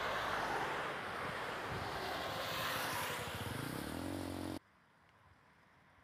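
Road traffic passing close on a highway: a pickup truck's tyre and engine noise rushing by, then another vehicle's engine rising in pitch about three seconds in. The sound cuts off abruptly about four and a half seconds in, leaving near silence.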